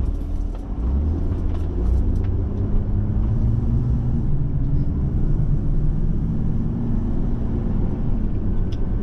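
Camper van driving, with a steady engine and road rumble; the engine note rises slowly as the van picks up speed on the open road.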